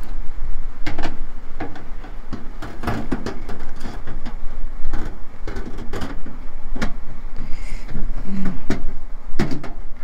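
Stainless-steel wire racks of a Babybee cabinet-type UV sterilizer clinking and sliding as they are fitted back into the cabinet: an irregular run of sharp metallic knocks and rattles.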